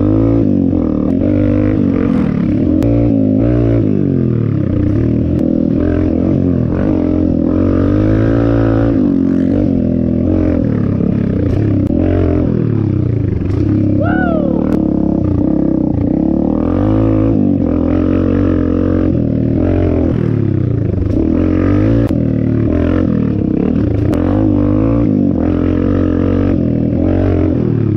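Dirt bike engine revving up and falling back again and again as the bike is ridden around a dirt track, heard close up from the rider's seat. There is a sharp rev up and back down about halfway through and another right at the end.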